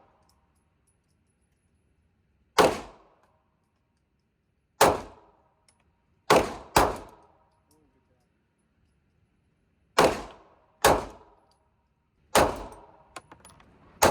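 Glock 43x 9mm pistol firing single shots at an irregular pace, seven within a few seconds of each other. Each shot is a sharp crack with a short echoing tail.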